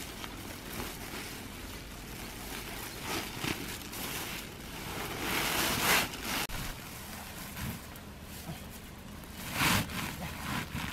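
Rustling and swishing of a nylon mesh net and a woven plastic sack as the net is stuffed into the sack, with louder swishes about halfway through and again near the end.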